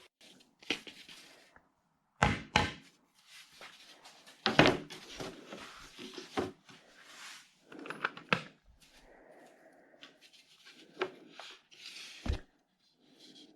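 Workshop handling noises: an irregular series of wooden knocks and thunks, the loudest a double knock about two seconds in and another about four and a half seconds in, with softer rubbing and scraping between, as boards and tools are moved and set down.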